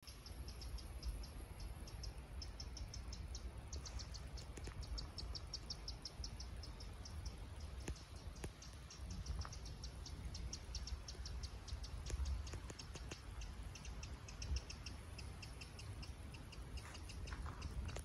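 Outdoor bird calls: a long, rapid run of short, high chirps, joined by a second, lower series of chirps about two-thirds of the way through, over a low rumble.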